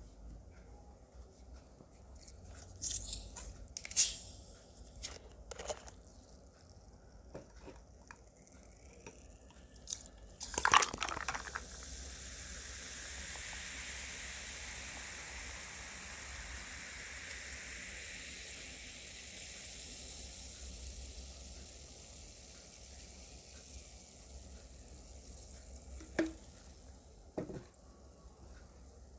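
A few sharp clicks and knocks of dishes, then a burst about ten seconds in as a Coca-Cola is opened, followed by a long fizzing hiss of the carbonated drink that swells and slowly fades over about ten seconds.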